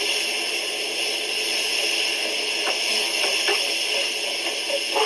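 Steady sizzling hiss of tomatoes frying in a pan, with a few faint clicks in the middle.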